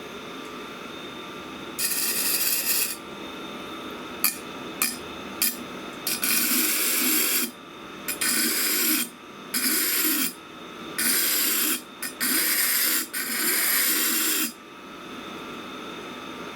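Steel knife blade ground against a sharpening wheel in a series of scraping strokes, each about a second long, with a few short ticks between the early strokes. This is stock removal to reshape the santoku's broken tip.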